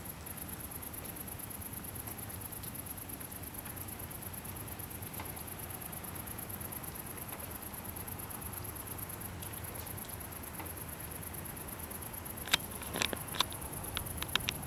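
Steady hiss and a thin high whine from a handheld consumer camera's microphone. Near the end comes a quick run of sharp clicks and ticks as the camera is handled, the first the loudest.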